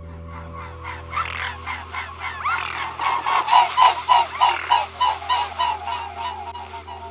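Swans honking: a rapid run of nasal honks, about four a second, growing loudest in the middle and fading toward the end, over a steady low musical drone.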